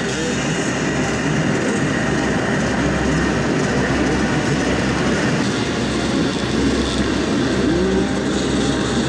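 Many hard enduro dirt bike engines revving together as a large pack of riders starts at once, their pitches rising and falling over one another in a dense, steady din.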